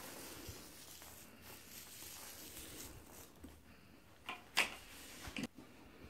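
Low room noise, then a few sharp clicks and knocks about four to five and a half seconds in, as the hose and plastic parts of a canister wet-and-dry vacuum cleaner are handled. Its motor is not running.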